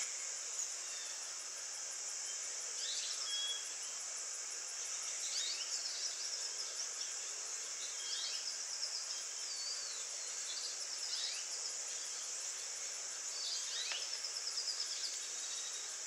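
Steady high-pitched drone of insects, with short sliding bird chirps now and then over it.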